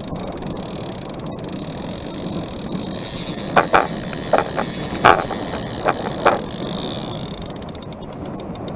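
Steady rushing noise of water and wind around a small fishing boat. Between about three and a half and six and a half seconds in, about six sharp knocks are heard as a fishing rod is handled in the boat.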